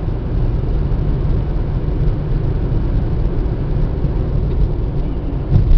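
Steady low rumble of a car's road and engine noise while driving through a highway tunnel, with a brief louder low thump near the end.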